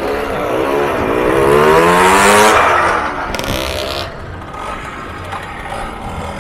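Vintage moped's small two-stroke engine accelerating as it rides past, its note climbing steadily for about two seconds and then dropping away. A short hiss follows about three and a half seconds in.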